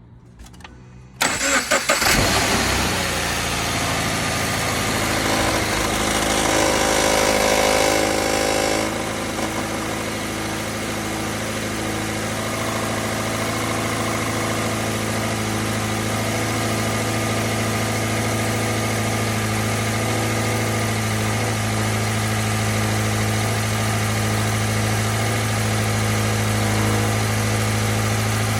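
Toyota GT86's 2.0-litre flat-four boxer engine cranked and catching about a second in, then running at a raised idle with an extra noisy layer on top that stops suddenly about nine seconds in, after which it idles steadily. The extra noise is the startup sound the owner finds strange and cannot explain.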